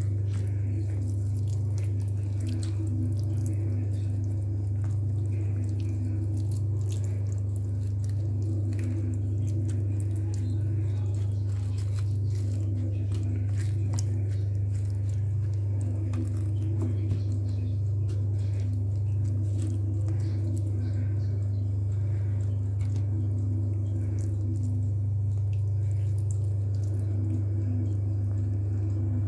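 Hands working raw chicken pieces and potato wedges in a glass baking dish, with faint wet squishes and small clicks, over a steady low hum.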